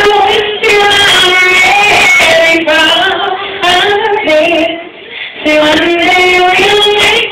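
A woman singing live, holding long notes that bend and waver in pitch, with a short break for breath about five seconds in.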